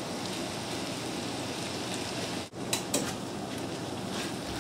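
Diced ratatouille vegetables sizzling steadily in a stainless steel pan on lowered heat. A brief break about halfway through, then a couple of light clicks.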